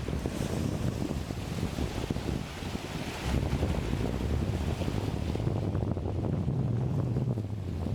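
Strong wind buffeting the microphone in an uneven low rumble, over the wash of a choppy, confused sea.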